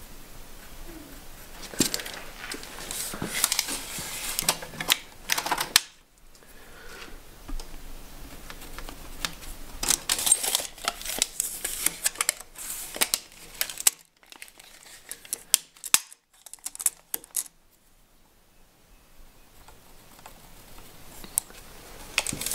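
Pencil scratching layout marks on a wooden timber beam against a metal square, then a tape measure being handled, a run of small scrapes and clicks. The sounds thin out about six seconds in and nearly die away in the last few seconds.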